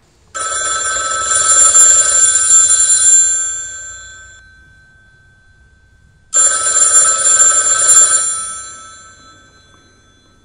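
Telephone bell ringing twice, each ring lasting about two to three seconds and then fading out, with a pause of a couple of seconds between them.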